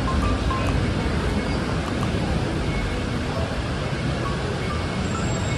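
Steady roar of a heavy tropical downpour, with faint background music over it.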